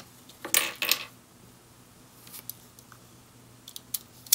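Hard plastic LEGO Technic parts clicking and rubbing as they are handled and pressed together, with a short cluster of louder clicks about half a second in and a few faint ticks later.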